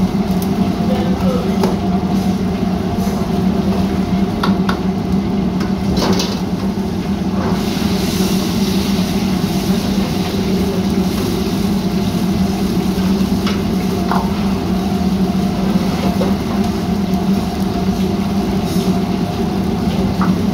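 Steady drone of a commercial kitchen's gas wok range and its extraction, with a metal ladle clinking against the woks several times and a spell of frying sizzle from about seven to ten seconds in.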